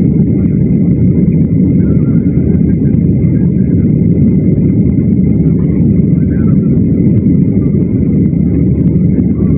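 Cabin noise inside a flydubai Boeing 737 in flight: the jet engines and rushing air make a loud, even low rumble, with a thin steady high tone over it.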